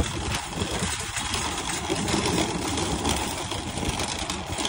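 Metal shopping cart rolling over asphalt, its wheels and wire basket rattling steadily.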